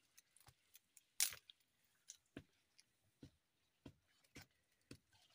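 Small twig fire under a cooking pot crackling: sparse, irregular sharp clicks, the loudest about a second in.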